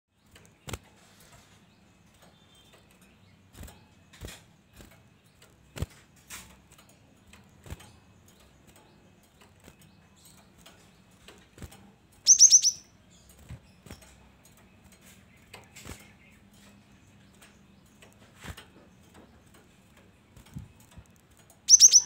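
Gelatik batu (cinereous tit) giving a quick run of four or five high, falling chirps about twelve seconds in and another right at the end. Scattered soft clicks and taps fall in between.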